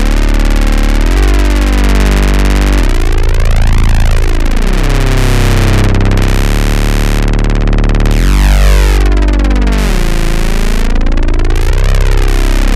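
Background electronic music: a dense synthesizer sound with a whooshing sweep that rises and falls every few seconds, over held bass notes that change every couple of seconds.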